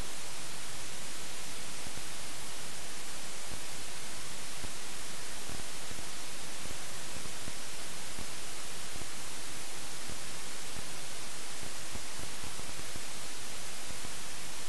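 Steady electronic hiss and static, even throughout and strongest in the highs, with no engine or other sound: the helmet camera's faulty audio recording nothing but noise.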